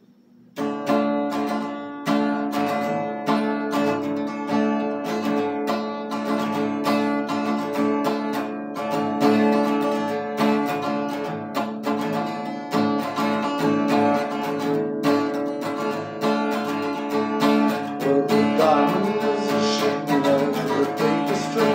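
Acoustic guitar strummed, starting suddenly about half a second in, playing the intro to a folk sailing ballad. A man's singing voice joins near the end.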